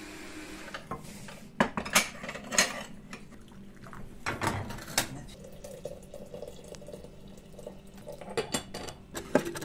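Kitchen crockery and a metal bowl clinking and knocking several times, with water poured from an enamel kettle in the second half.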